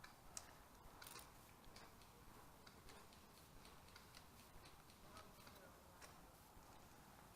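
Near silence: a faint hiss with a few scattered faint clicks.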